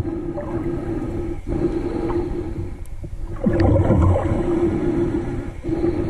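Muffled underwater sound picked up by a submerged camera: a steady hum over water noise, broken by short dips, with a louder rushing surge about three and a half seconds in.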